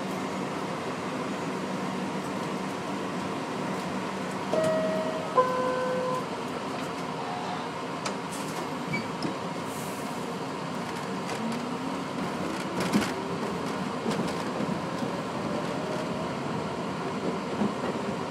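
R62A subway car pulling out of a station: a two-tone door chime stepping down in pitch about four and a half seconds in, with a thud as the doors close, then a whine from the traction motors rising in pitch as the train starts to move, over the steady hum of the car.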